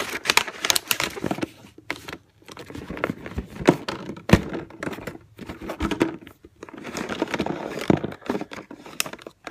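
Handling noises from a homemade toy vending machine being worked to free stuck toys: an irregular run of knocks, taps and crinkling, with one sharper knock about four seconds in.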